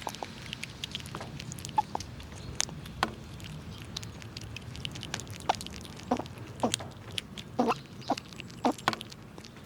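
Squirrels gnawing and cracking nutshells: irregular sharp cracks and crunches that come thicker and louder in the second half.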